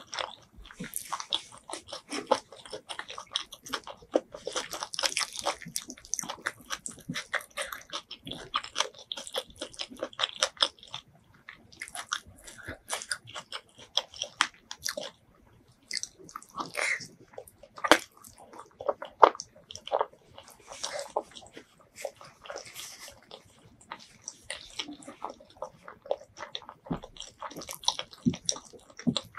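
Close-miked eating of butter chicken and rice with the hands: biting and chewing, heard as many short, quick mouth clicks and crackles, with a pause of about a second partway through.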